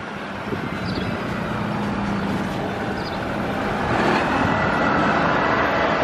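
Heavy dump truck's engine running as it drives closer, getting louder about four seconds in.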